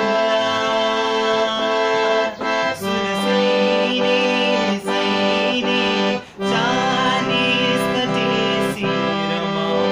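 Hand-pumped harmonium playing held chords, with a young male voice singing along. The sound dips briefly about three times, at chord changes.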